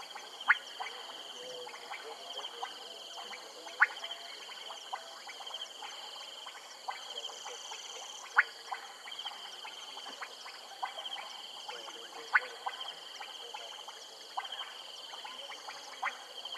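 Frog chorus: loud, sharp clicking calls every few seconds, with quieter clicks between them, over a steady high trill.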